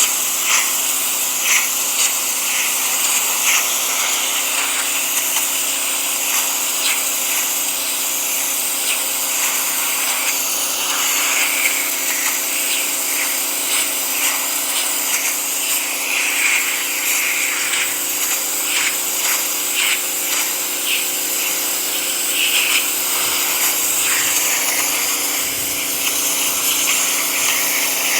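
Electric pressure washer running steadily, its motor humming under the loud hiss of the water jet, with scattered crackles as the spray hits brickwork.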